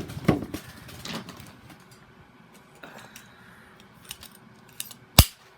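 Hands handling a model horse and its cardboard box and packaging: small clicks and rustles, with one sharp click about five seconds in.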